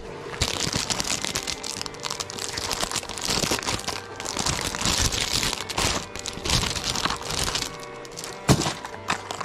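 Plastic lure packaging crinkling and crackling as it is handled and opened, with one sharp knock near the end.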